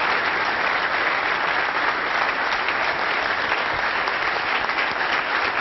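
Audience of martial-arts students applauding, steady sustained clapping from a large group.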